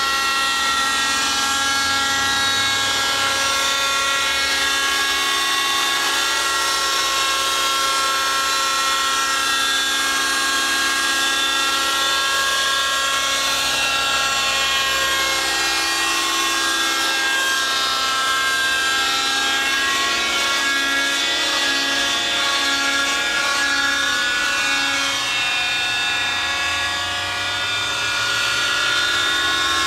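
Thunder Tiger Raptor 50 radio-controlled helicopter's small glow-fuel two-stroke engine and rotor running steadily in flight, a high buzzing tone whose pitch wavers slightly as it hovers and manoeuvres. It grows briefly quieter near the end as it climbs away.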